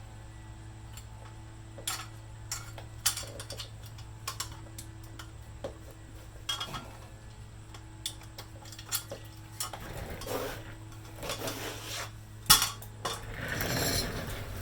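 Metal parts clinking and clanking as they are handled and fitted together, in scattered irregular knocks with one sharp clank about twelve and a half seconds in and a scraping rattle near the end, over a steady low hum.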